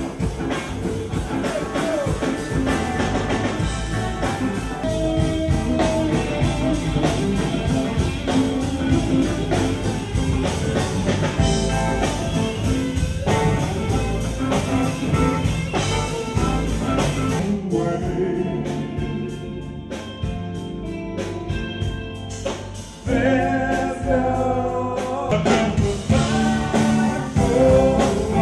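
Live rock band playing with vocals at a sound check: full band with guitar and singing. About two-thirds of the way through the music thins out and drops back, then comes back in loud again.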